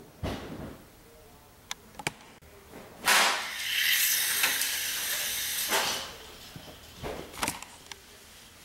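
Pinewood derby car on 1.8-gram Inertia Lite wheels running down a derby track: a loud, rushing whir of wheels that starts suddenly and lasts under three seconds. A few sharp knocks follow about a second after it stops.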